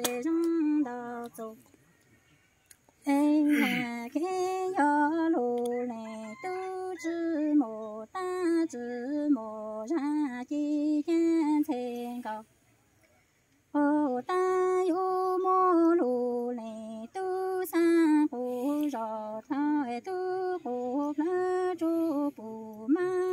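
Unaccompanied woman's voice chanting Hmong sung poetry (lus txiaj) in long held, wavering notes, phrase after phrase, with two short pauses, about two seconds in and about twelve seconds in.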